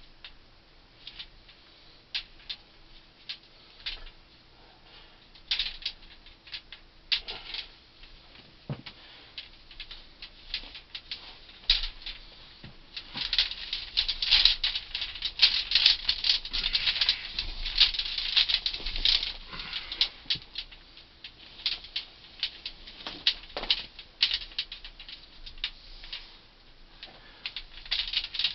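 Copper ground-loop tubing and a garden hose being fed by hand down a geothermal borehole, rattling and scraping: scattered clicks at first, thickening into a dense crackling rattle through the middle.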